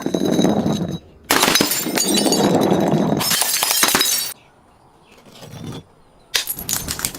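Glass bottles being smashed, shattering and tinkling in bursts. There is a short crash at the start, a longer run of breaking glass lasting about three seconds, and another crash near the end.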